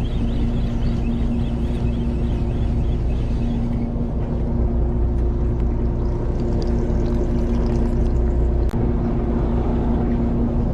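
Fishing boat's engine running steadily: a low rumble with a constant hum. There is one sharp click near the end.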